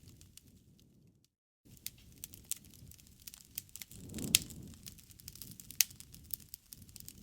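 Campfire crackling, with irregular sharp pops over a low rumble of flames. One loud pop comes a little past halfway and another sharp one about a second and a half later; about a second in, the sound cuts out completely for half a second.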